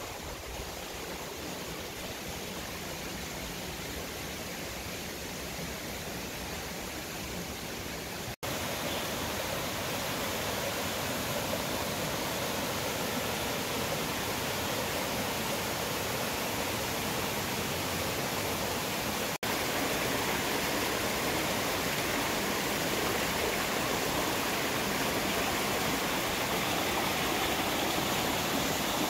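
Water rushing over the boulders of a rocky mountain stream: a steady hiss with no distinct events. It cuts out briefly about a third of the way in and again about two-thirds in, and comes back louder each time.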